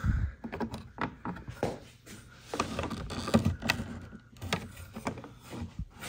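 Plastic body panels of a Sea-Doo personal watercraft being worked loose by hand: irregular clicks, knocks and scraping of plastic on plastic, the loudest knock about three seconds in.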